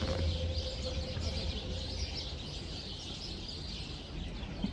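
Small birds chirping steadily, with a low rumble underneath.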